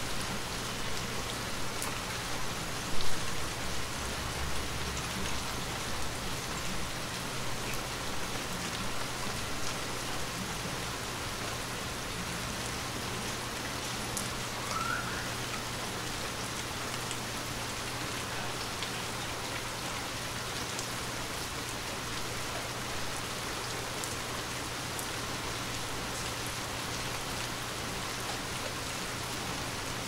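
Light rain falling steadily, an even patter of drops, with one sudden louder knock about three seconds in.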